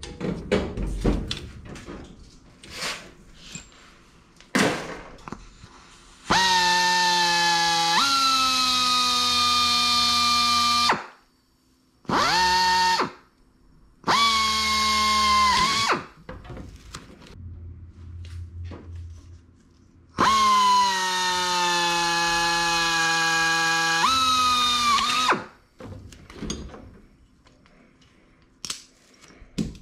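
Air drill drilling through aluminium parts in four runs, the two longest about five seconds each: a whine with air hiss that sags in pitch as the bit bites into the metal. Small clicks and knocks of parts being handled come between and before the runs.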